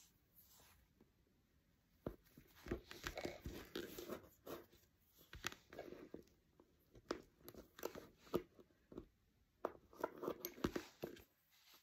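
Lace bobbins clicking and knocking against each other in irregular clusters as pairs are crossed and twisted, with soft rustling of handling between the clicks.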